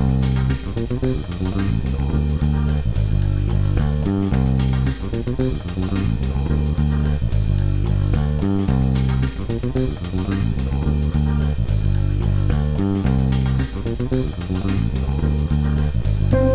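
Background music: a bass and guitar riff over a steady beat.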